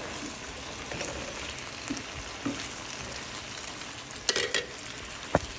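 Diced potatoes sizzling as they fry in a pan, stirred with a spatula, with a steady hiss and a few sharp scrapes and knocks of the spatula against the pan near the end.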